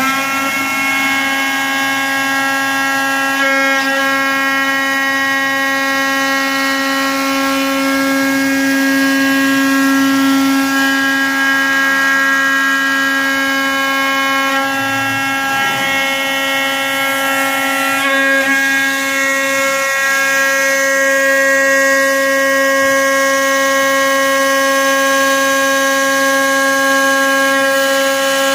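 CNC router spindle running steadily at constant speed: a continuous high-pitched whine that holds one pitch.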